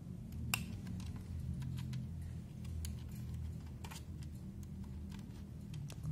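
Scattered small plastic clicks and taps as fingers handle the cables and press a SATA connector onto a hard drive inside a DVR's metal case, the sharpest click about half a second in, over a steady low hum.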